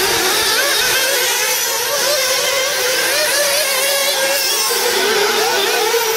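Several 1/8-scale 4x4 off-road RC buggies' small two-stroke nitro engines buzzing together, their overlapping high whines rising and falling as the cars accelerate and lift off through the corners.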